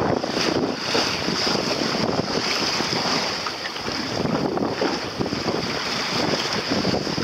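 Wind buffeting the microphone over the wash and splash of choppy sea around a small sailboat under way.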